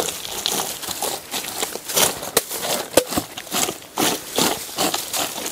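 Bare feet treading ripe Mbidde bananas in a wooden dugout trough: a run of irregular short squashing noises as the fruit is mashed underfoot to soften it and press out its juice for banana beer.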